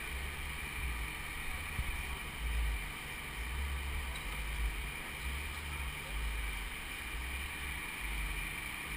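Wind buffeting a helmet-mounted camera's microphone: a low, uneven rumble that swells and fades in gusts.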